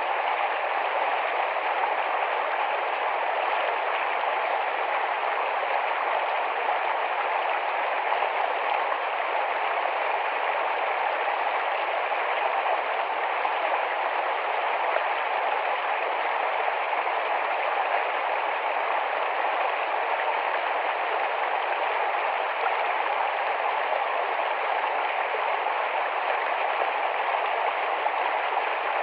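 Small, fast mountain stream flowing steadily over rocks: an even splashing rush of water with no pauses.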